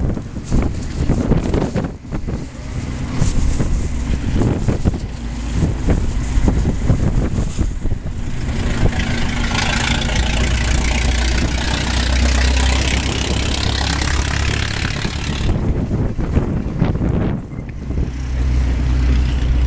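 1916 Stutz Bearcat's four-cylinder engine running as the open car drives past, with a steady low engine note. A louder rushing noise swells for several seconds in the middle.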